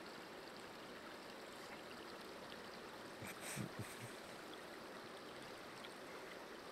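Faint, steady rush of a flowing river, with a brief faint sound about three and a half seconds in.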